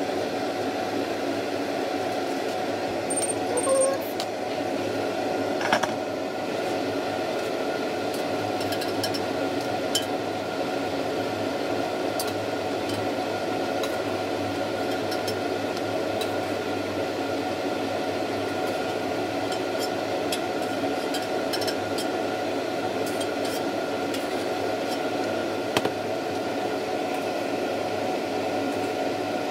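Steady whir of a kitchen range hood fan, with a few light clinks of a metal ladle against the wok.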